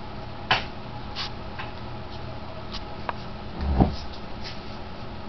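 A puppy playing with a plush toy on a hard floor: scattered light clicks and taps, and a dull thump about two-thirds of the way through, over a steady low hum.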